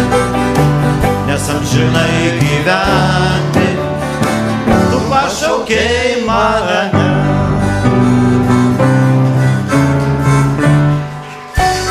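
Live band instrumental break: a harmonica plays the wavering melody over acoustic and electric guitars. The music dips briefly near the end, then comes back in.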